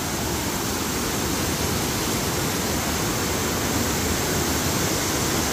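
Water spilling over a low lake dam's weir, a steady rushing that grows slightly louder towards the end.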